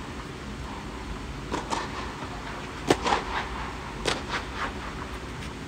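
Tennis ball struck by rackets and bouncing on a clay court during a rally: a string of sharp pops, the loudest about three seconds in, over a steady low background noise.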